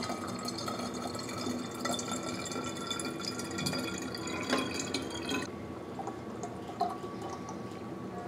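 Water running from the spigot of a ceramic water crock into a glass jar, a steady splashing fill. About five and a half seconds in the stream suddenly drops away and the sound becomes much quieter.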